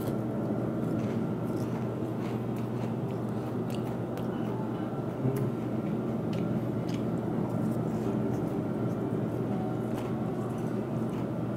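Thin, crisp tempura batter being bitten and chewed close to the microphone, with scattered small crunches.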